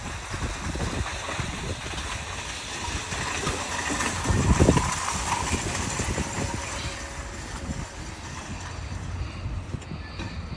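A long train of nested metal shopping carts rolling and rattling over asphalt, pushed by a motorized cart pusher, loudest about halfway through as it passes close by.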